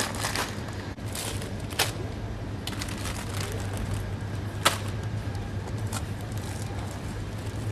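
Supermarket background noise: a steady low hum under a haze of shuffling and rustling, with a few sharp clicks or knocks, the loudest about two seconds and nearly five seconds in.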